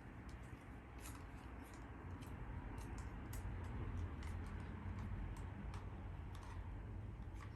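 Irregular light clicks and taps of small plastic drone accessories and packaging being handled, over a low steady hum.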